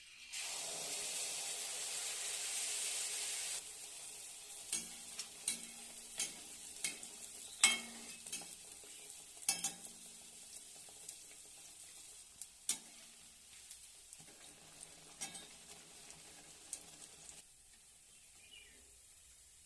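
Malpua batter frying in a pan of hot fat. A loud sizzle for the first three or four seconds, then a quieter steady sizzle broken by sharp knocks of a utensil against the pan. The sizzle fades out near the end.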